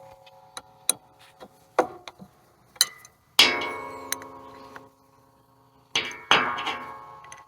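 Hammer striking steel parts of an antique sawmill: a few light taps and clicks, then two hard blows about three seconds apart, each leaving a ringing clang that fades away over a second or two.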